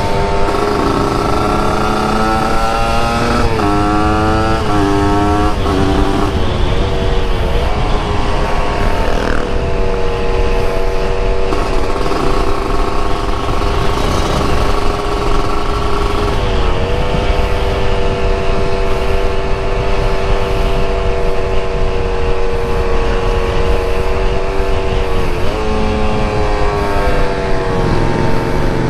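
Yamaha RX-King 135 two-stroke single-cylinder motorcycle engine pulling through the gears, its pitch climbing and dropping with each upshift in the first few seconds, then running at a steady cruising speed. Wind rushes over the microphone throughout.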